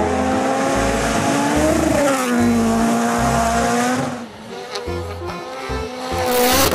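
Rally cars passing at speed on a gravel stage. One engine's note rises, then drops as the car goes by about two seconds in, and fades after about four seconds; a second car rushes in loudly near the end. Background music with a steady bass beat runs underneath.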